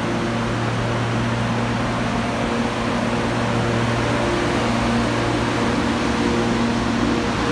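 Class 92 electric locomotive drawing slowly past: a steady electrical hum with several held low tones over a hiss, growing slightly louder as it comes alongside.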